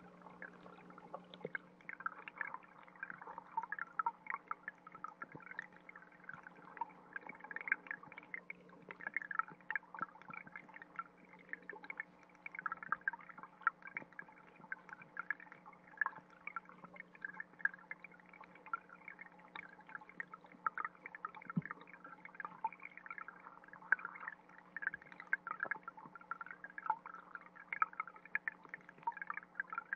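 Stream water trickling and bubbling, heard underwater through a GoPro in its waterproof housing: a dense, continuous patter of small bubbling pops over a faint steady low hum.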